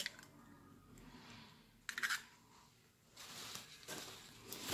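A raw egg being broken open by hand over a mixing bowl. There is a faint click at the start and a short, sharp crack about two seconds in. A soft rustling follows near the end.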